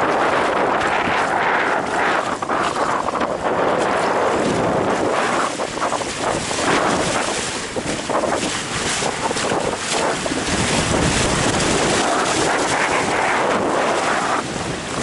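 Strong wind rushing and buffeting over the microphone, mixed with water hissing and splashing under a Manta 59 windsurf board sailing fast through chop.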